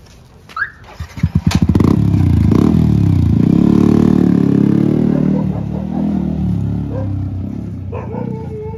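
Yamaha R15 v3's single-cylinder engine through an aftermarket Akrapovic exhaust: a few sharp throttle blips, then the engine revs hard as the bike pulls away. The note climbs and drops with the throttle, then grows quieter as the bike rides off.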